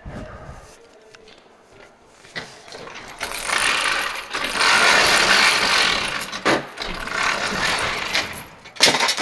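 Insulated sectional overhead garage door being pushed up by hand, its rollers rattling along the steel tracks for several seconds. It ends with a couple of sharp knocks.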